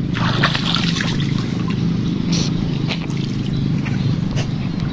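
Hands splashing and rinsing in a shallow muddy ditch, with most of the splashing in the first second and a few smaller splashes after, over a steady low hum.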